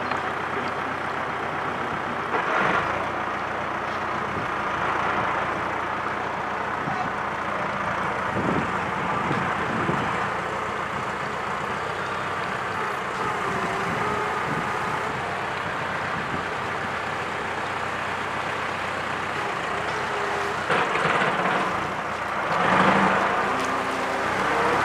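Wooden motor cruiser's inboard engine running steadily while her propeller churns the water at the stern; near the end the engine note rises.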